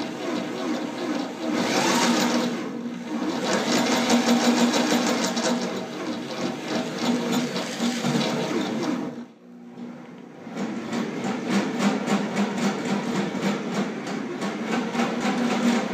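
Electric drill turning a line-boring bar whose cutting bit is boring out the hard steel of a loader bucket pin mount. The motor runs under load with a fast, even chatter, stops briefly about nine seconds in, then starts up again.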